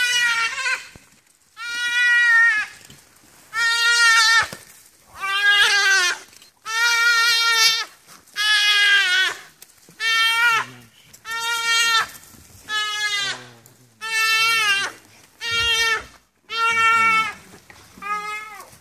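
A duiker bleating in distress while wild dogs pull it down and tear at it: a loud, high-pitched bleat about a dozen times, each call roughly a second long, one after another with short gaps.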